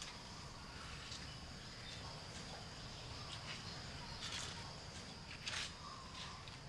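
Quiet ambience with a steady high-pitched insect drone, and a few faint, irregular footstep scuffs on a wooden floor as two people walk.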